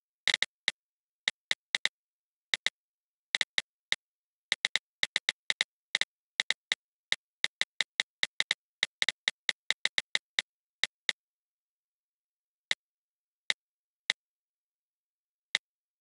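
iPad on-screen keyboard key clicks as a message is typed: quick, irregular taps, a few a second, thinning to single clicks near the end, with dead silence between them.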